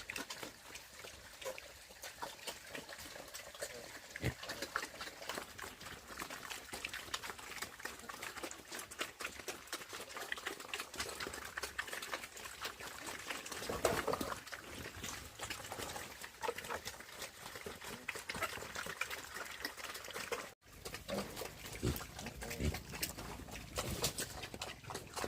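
Pigs grunting, with many small clicks and crackles throughout and a louder burst about fourteen seconds in.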